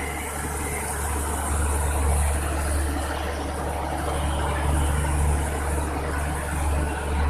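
State Railway of Thailand passenger coaches rolling slowly past the platform as the train pulls in to stop, with a steady low drone underneath the rolling noise.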